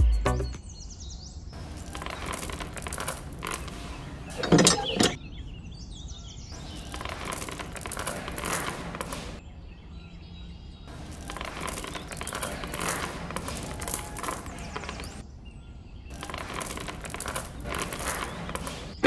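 Small coloured aquarium-style pebbles poured by hand onto sand and into a little brick frame, clattering against each other in several pours a few seconds long with short pauses between. The loudest clatter comes about four and a half seconds in.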